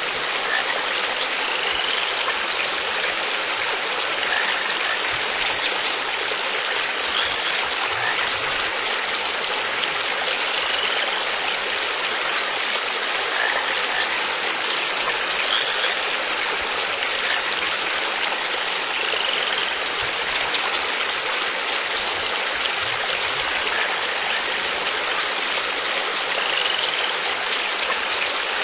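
Steady rushing sound of running water, like a flowing stream, with faint short high chirps every few seconds.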